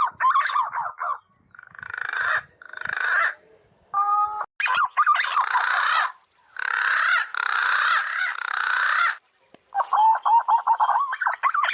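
Birds calling in repeated bursts separated by short gaps, with a thin, steady high-pitched whine starting about five seconds in and carrying on.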